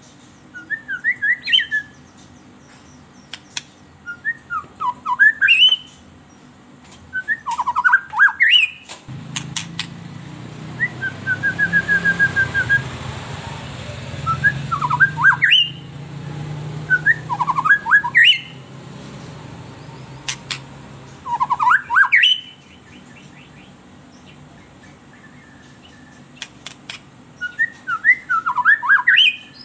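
White-rumped shama (murai batu) singing about eight short phrases of quick rising and falling notes, with pauses between them. One phrase near the middle is a level trill. A low rumbling noise runs underneath through the middle stretch.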